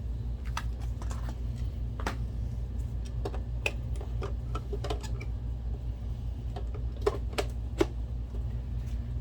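Irregular small clicks and taps of a screwdriver and screw working on the projector's case during reassembly, a couple of sharper clicks near the end, over a steady low hum.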